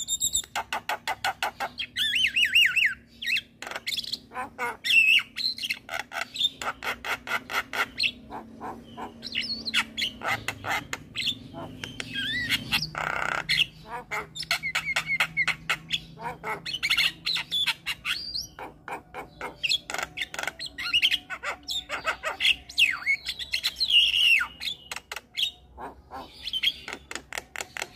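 Javan myna singing a long, vigorous song: rapid runs of short clicking and harsh chattering notes mixed with whistled calls that glide down in pitch.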